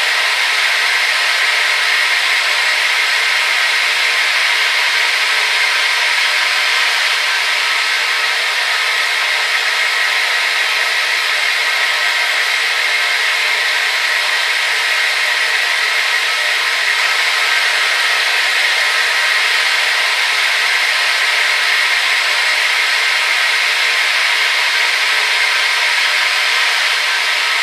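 Hair dryer running steadily: an even, hissing rush of air with a faint motor whine and no change in level.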